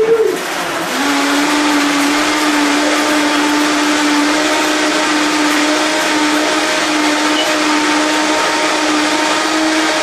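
Countertop blender running at high speed, blending frozen fruit and water into a smoothie. The motor shifts up about a second in, then holds a steady, loud whine.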